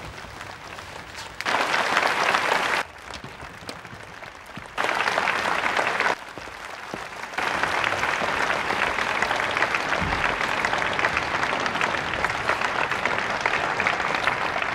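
Theatre audience applauding. It comes in twice briefly, about a second and a half in and again around five seconds, with quieter gaps between. From about seven seconds on it is steady and continuous.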